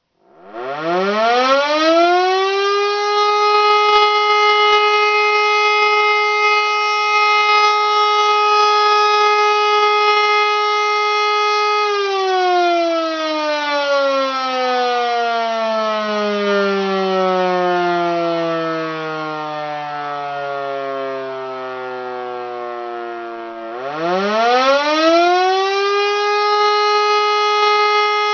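E57 electromechanical motor siren sounding the fire-alarm signal, a rich, many-toned wail. It winds up from silence to a steady high tone within about two seconds and holds it for about ten seconds. It is then switched off and winds down with steadily falling pitch for about twelve seconds, and near the end starts up again, rising to the same steady tone for the next blast.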